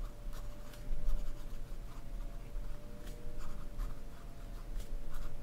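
A pen writing on a paper pad: a run of short scratching strokes as a line of words is written out by hand.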